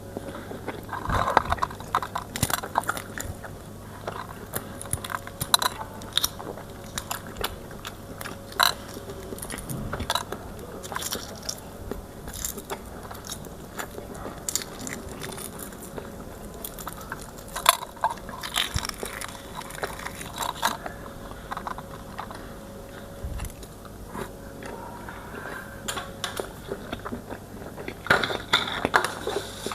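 A person eating close to the microphone: chewing and biting food, with many irregular mouth clicks and smacks that come in clusters.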